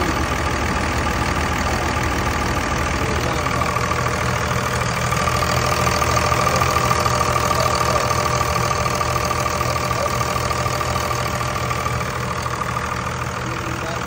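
2001 Dodge Ram's 5.9-litre 24-valve Cummins turbo diesel idling steadily, with a steady whistling hiss that grows louder in the middle and fades toward the end: the sign of a vacuum leak in the engine's vacuum lines.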